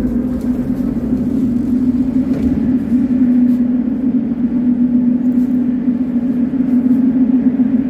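Metro train with a loud, steady electrical hum at one even pitch over a low rumble that eases a few seconds in.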